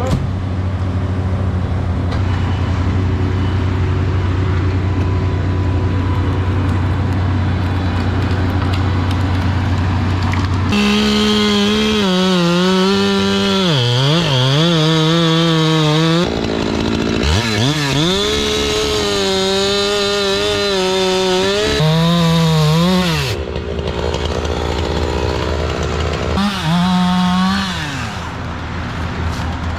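An engine runs at a steady low hum for about the first ten seconds; then a chainsaw revs to full throttle and cuts wood, its pitch sagging each time the chain bites and recovering between cuts, several times to the end.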